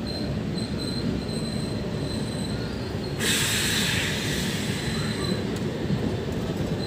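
Passenger train running, heard from inside a coach: a steady low rumble of the wheels on the track, with a loud hiss joining suddenly about three seconds in.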